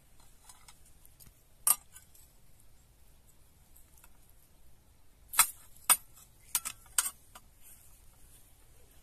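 Metal serving spatula and fork clinking against a ceramic plate as a crusty saffron rice pilaf is cut and served: one sharp clink, then a quick run of about five clinks a few seconds later.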